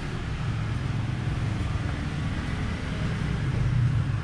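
Motorbike engines running in street traffic, a steady low rumble that swells slightly near the end.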